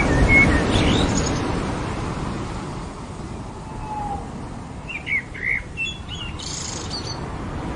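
Ocean surf on a beach: a wave breaks at the start and washes out, fading over the next few seconds. Birds chirp and call over it, with a short falling whistle about four seconds in and a cluster of chirps around five to six seconds in.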